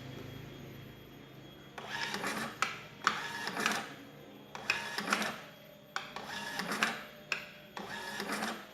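A queue-ticket machine's printer printing number tickets in several short runs of whirring, each broken by sharp clicks, starting about two seconds in.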